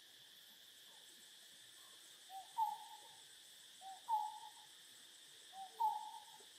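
A bird's hooting call, a short low note followed by a louder, longer hoot, given three times about a second and a half apart, over a steady high insect drone.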